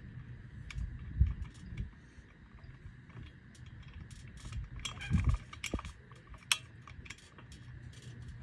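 Hand-cranked winch on a steel goat stand clicking and clanking irregularly as it is worked to lower the platform, with heavier thumps about a second in and about five seconds in.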